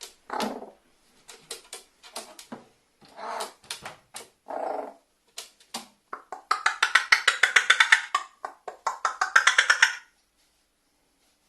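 Carrion crow calling: short throaty calls mixed with sharp clicks, then a fast knocking rattle of about nine knocks a second that runs for about three and a half seconds before stopping.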